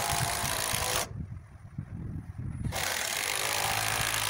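Cordless impact driver running in two bursts of about two seconds each, driving fasteners into a wooden beam. The first burst stops about a second in; the second starts about a second and a half later. A low rumble continues underneath.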